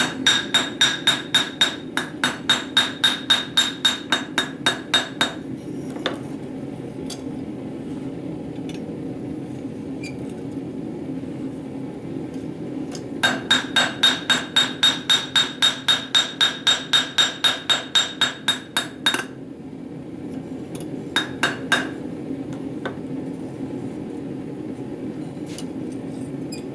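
Hand hammer striking hot rebar on a steel anvil, drawing down the ends of the piece: two quick runs of about four ringing blows a second, then a few last blows near the end. A steady low hum runs underneath.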